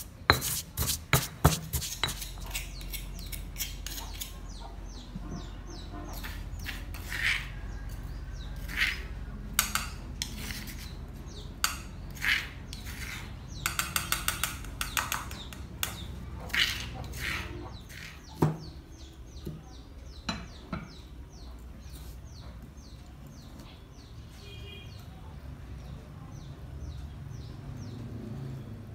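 Stone pestle knocking and grinding in a stone mortar, pounding chili for a salt dipping sauce, with several sharp knocks in the first few seconds. Then scattered clicks and quick runs of ticks as a spoon scrapes and taps the paste out of the mortar into a small bowl.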